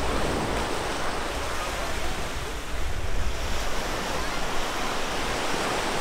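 Ocean surf washing onto the beach, with wind rumbling on the microphone.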